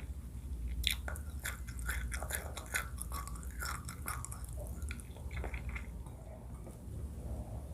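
Close-miked chewing of seafood crab papaya salad: a quick run of crisp, wet clicks and smacks that thins out after about six seconds.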